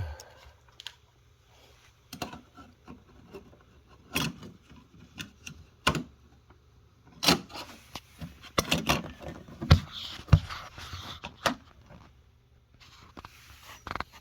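Irregular clicks, taps and knocks of a hard plastic outlet cover plate and its hardware being handled and fitted by hand over a wall receptacle.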